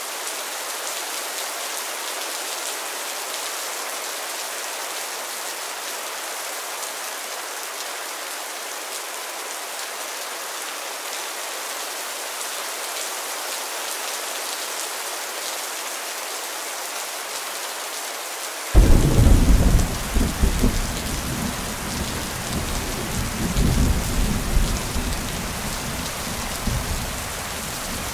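Steady rain hiss. About two-thirds of the way through, a sudden loud clap of thunder breaks in and rolls on as a rumble that swells and fades under the rain.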